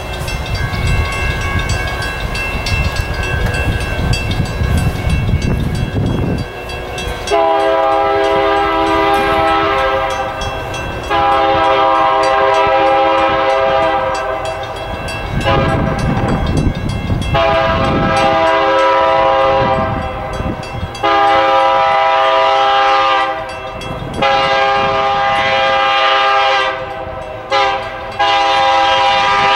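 Air horn of an approaching coal train's lead locomotive, a BNSF SD70MAC, sounding the grade-crossing signal twice in a row: long, long, short, long. Before the blasts start, about seven seconds in, there is a low rumble with the horn faint in the distance.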